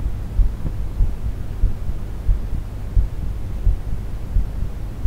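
Human heartbeat picked up through the ribs by an AKG C411 contact microphone: regular low thuds under a steady low rumble, with a faint hiss above.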